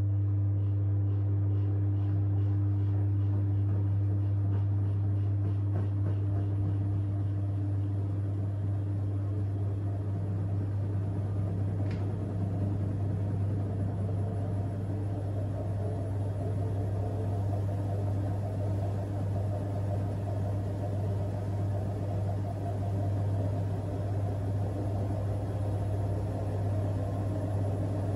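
AEG washing machine's drum and motor spinning at high speed during an intermediate spin: a steady, loud hum that holds constant throughout.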